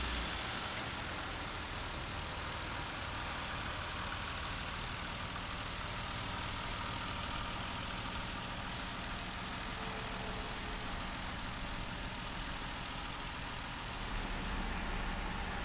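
A Toyota Supra's 2JZ-GTE twin-turbo 3.0-litre inline-six idling steadily.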